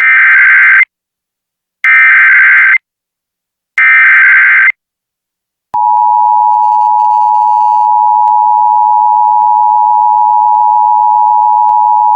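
Emergency Alert System alert opening: three one-second bursts of the SAME digital header, buzzy warbling data about two seconds apart, then a few seconds in the steady two-tone EAS attention signal starts and holds. It marks the start of an EAS warning broadcast.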